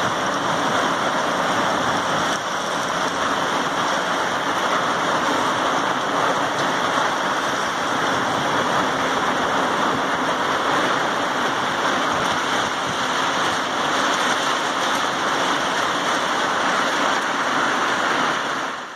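Heavy rain in a hard downpour, a dense, steady hiss of falling water that cuts off abruptly at the very end.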